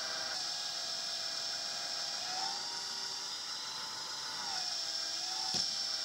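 Electric hydraulic pump of a 1/14-scale RC backhoe loader running with a steady whine, its pitch shifting up and down as the excavator arm's hydraulic cylinders are worked. A single sharp click near the end.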